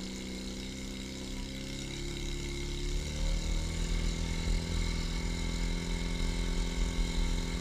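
Portable fire pump's engine running steadily while it draws water from the tank through the suction hose. About three seconds in its pitch shifts and it gets louder, with more low rumble.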